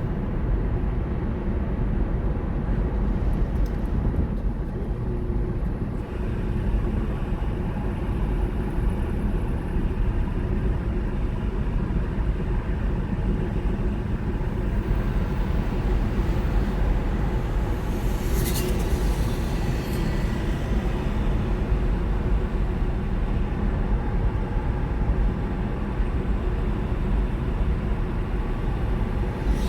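Steady low rumble of a car driving, heard from inside the cabin: engine and tyre noise on the road. A brief high hiss comes about two-thirds of the way through.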